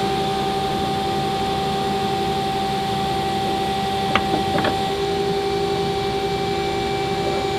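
Steady mechanical hum of shop machinery. Two short clicks a little past halfway come from a hand arbor press pushing a steel dowel pin into a vise base.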